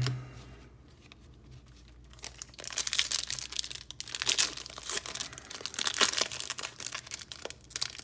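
Foil wrapper of a Topps Chrome baseball card pack being torn open and crinkled by hand. The crackling starts about two seconds in and goes on in quick, uneven bursts.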